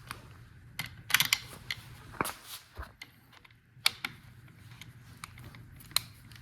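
Irregular clicks and clanks of mechanical hand work, over a low steady hum. A quick cluster of clicks comes about a second in, and single sharp clicks near four and six seconds in.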